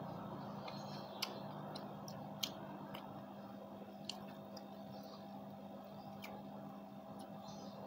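Close-up mouth sounds of eating sauce-soaked fried tofu by hand: wet chewing and a handful of short sharp clicks and smacks scattered through, over a steady low hum.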